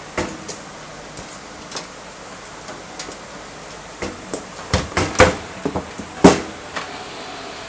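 Sharp knocks and clacks from PC parts being handled, a few light clicks at first, then a cluster of louder knocks about four to six seconds in, the loudest near the end.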